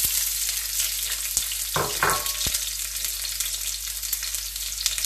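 Chopped onion sizzling in hot oil in a stainless steel wok, a steady loud frying hiss. A few brief knocks come about two seconds in.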